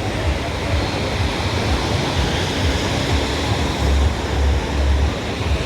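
Sea surf washing steadily on the beach, with gusty wind rumbling on the microphone.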